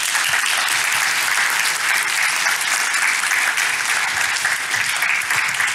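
Audience applauding, a dense, steady clapping from many hands.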